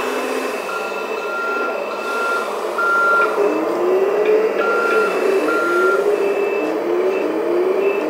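Electronic reversing-alarm beeps from an RC hydraulic wheel loader's sound module, repeating in an even on-off pattern, over the steady running noise of the model. From about three seconds in, a repeating rising tone joins the beeps, about once a second.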